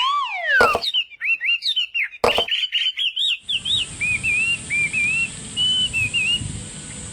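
A songbird chirping, a long run of short, quick up-and-down notes. It opens with a falling whistle and two sharp clicks, and a steady hiss sets in under the song about halfway through.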